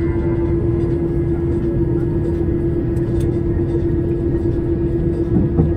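Steady drone of a jet airliner's engines heard inside the cabin: an even low rumble with a steady hum.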